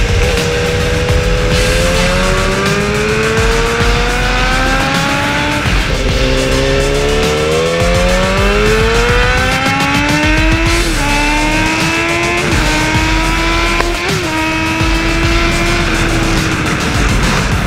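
BMW S1000RR inline-four sportbike engine accelerating hard through the gears: the pitch climbs for several seconds, drops with an upshift about six seconds in, climbs again, then three quick upshifts follow before it holds a steady note near the end.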